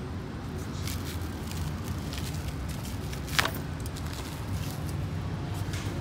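Low, steady motor-vehicle rumble with scattered light clicks and one sharper click a little past the middle.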